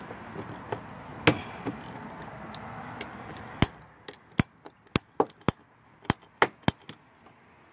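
Hand-held pipe cutter snipping through plastic lower front bumper trim: a run of sharp, uneven clicks and snaps in the second half, about two or three a second.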